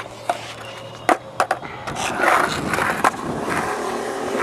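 Skateboard wheels rolling on concrete with sharp clacks of the board, a few close together about a second in and another near three seconds; the rolling grows louder about two seconds in.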